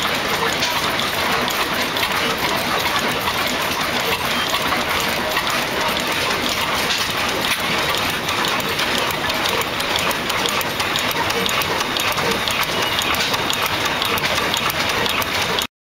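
Vintage stationary oil engines running, a dense steady mechanical clatter of many quick ticks with no single clear beat. It cuts off abruptly near the end.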